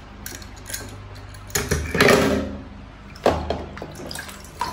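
Toy cars handled in a plastic tub of water: small clicks and knocks of the toys, a swish of water about two seconds in, and a sharper knock a little after three seconds.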